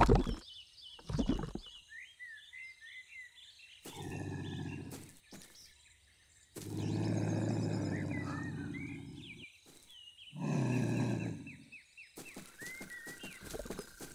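A heavy plop into thick mud right at the start, over cartoon forest ambience of chirping birds. Then a lynx growls low three times, the middle growl the longest at about three seconds.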